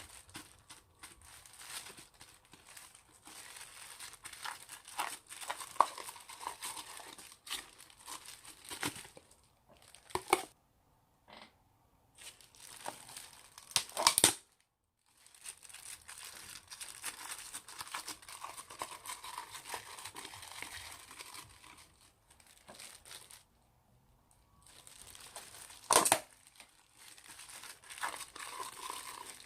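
Old slime being stretched and squished by hand: stretches of fine sticky crackling and tearing, with brief pauses and a few sharp snaps, the loudest about fourteen and twenty-six seconds in.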